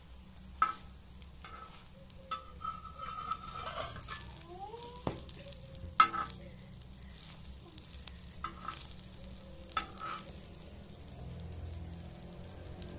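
Slotted metal spatula scraping and tapping on a tawa (flat griddle) as an egg-dipped sandwich fries, with sizzling underneath. There are several sharp taps, the loudest about six seconds in.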